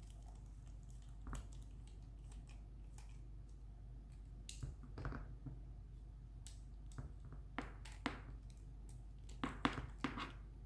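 Faint, scattered clicks and small taps of a tool and hands working the screws out of a Byrna LE launcher's top, over a steady low hum.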